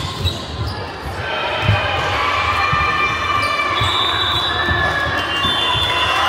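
Indoor volleyball rally on a wooden sports-hall floor: many short shoe squeaks, thuds of feet and ball, and players' voices calling out in the reverberant hall.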